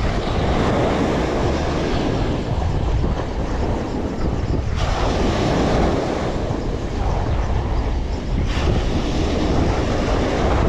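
Wind buffeting the microphone in gusts.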